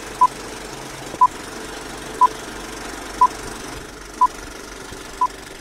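Six short electronic beeps at the same pitch, one each second, over a steady whirring hum.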